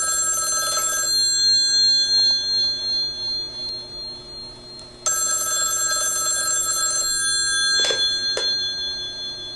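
Telephone ringing: two rings about two seconds long and six seconds apart, each fading out slowly after it stops. Two short clicks come near the end.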